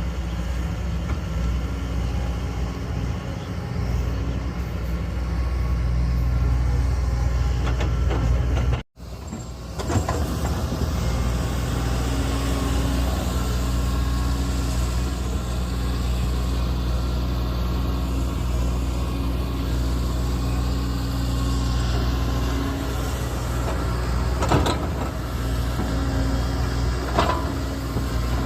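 Diesel engine of a heavy construction machine, a backhoe or excavator, running steadily with a low, even hum. It drops out for an instant about nine seconds in, and there is some clatter near the end.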